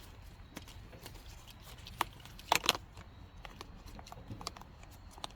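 Handling noise of the shifter boot and plastic console trim being tucked back into place: light rustling and a few sharp plastic clicks about two seconds in.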